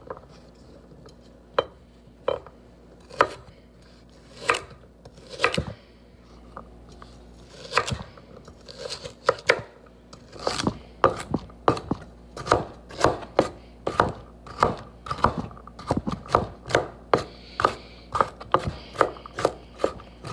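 Kitchen knife chopping carrots on a wooden cutting board: sharp knocks, spaced out and irregular at first, then a steady run of about two a second from about halfway in.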